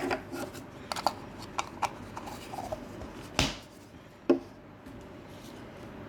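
Hands handling a plastic toy egg case and its packaging: scattered clicks and taps, one louder crack about three and a half seconds in, and a knock a little later.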